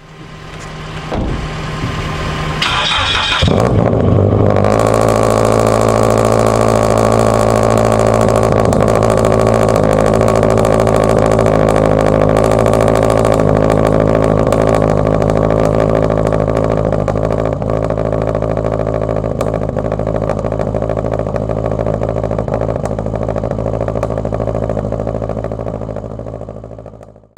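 Flat-four engine of a Toyota 86-platform sports coupe, heard at its twin exhaust tips, starting up within the first few seconds and then idling steadily.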